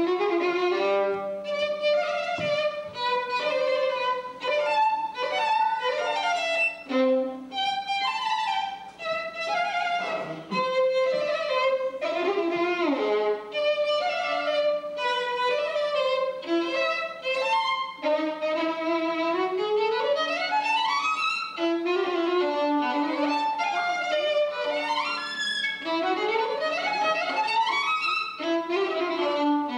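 Solo violin played with the bow: a fast, continuous passage of quick notes, with several rapid rising runs in the second half.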